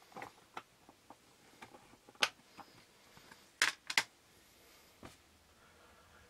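Small clear plastic tub and its snap-on lid handled on a tabletop: scattered sharp plastic clicks and taps, with three loud ones close together about three and a half to four seconds in.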